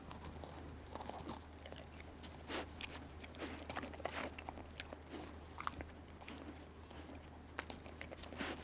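A person eating, with faint, irregular crunching and chewing sounds close to the microphone.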